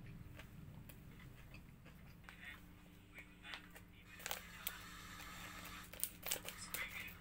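Plastic bag of pork-skin crackers being handled and opened: crinkling and rustling with sharp clicks, starting about four seconds in.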